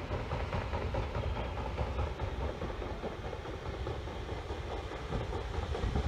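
Paddle steamer PS Waverley passing close by, its paddle wheels churning the water and its engine giving a steady mechanical noise.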